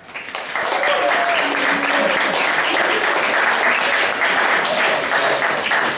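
Audience applauding, the clapping building quickly within the first half second and then holding steady.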